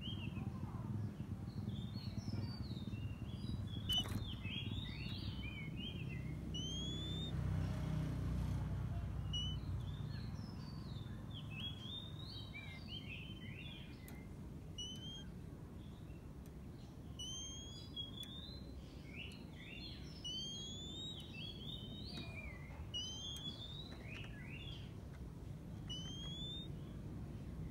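Oriental magpie-robin song: bursts of varied whistles and chirps with short rising notes, over a steady low background rumble. A single sharp click about four seconds in.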